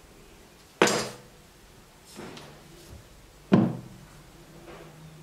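Objects being set down and handled on a tabletop: two sharp knocks, about a second in and about three and a half seconds in, each with a short ringing tail, and a fainter knock between them.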